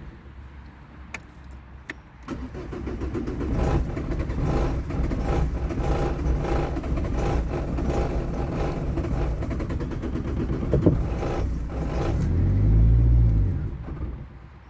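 A car engine being cranked and struggling to start: about ten seconds of rapid, uneven pulsing, then near the end a brief rise and fall in engine pitch before it dies away, the sign of a no-start condition.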